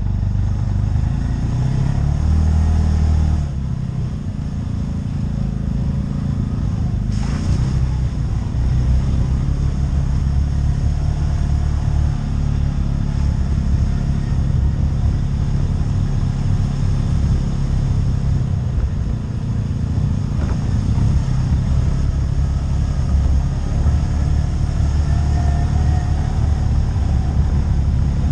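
ATV engine running while under way: a steady low engine drone that eases off briefly about three and a half seconds in, then holds on.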